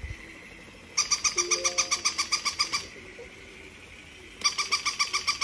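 Battery-operated walking plush puppy toy making its electronic sound: rapid, evenly pulsed high chirps, about eight a second, in two bursts of about two seconds with a pause between.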